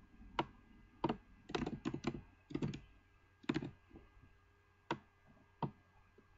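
Computer keyboard typing: about a dozen irregular key presses, some in quick runs of two or three and others spaced apart, as a few words are typed.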